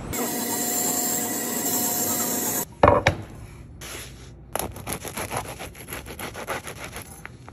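A loud steady hiss of street noise that cuts off suddenly, then a single loud thump. After that, a knife saws through a crusty baguette on a wooden cutting board in a quick run of rasping strokes, several a second.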